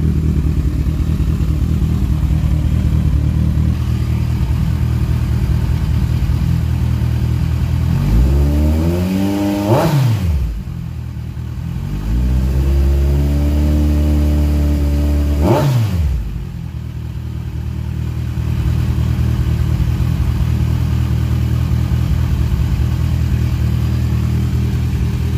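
Kawasaki Z1000 Sugomi's inline-four running through an Akrapovic megaphone exhaust: steady idle, then revved twice, first a rising rev that drops back quickly a little before the middle, then a held higher rev that ends in a sharp blip and falls back to idle about two-thirds of the way through.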